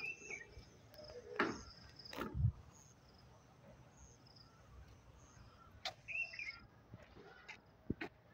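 Birds chirping: short high chirps repeat throughout, with a falling call at the start and again about six seconds in. A few sharp knocks come through, the loudest around two seconds in.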